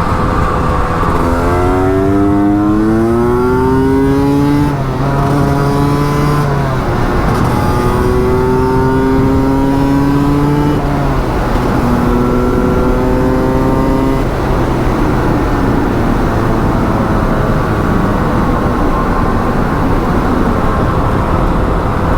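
Two-stroke KTM motorcycle engine pulling hard up through the gears: its pitch climbs and drops back at each shift, four times over about the first fourteen seconds, then it runs on as a steadier, rougher drone.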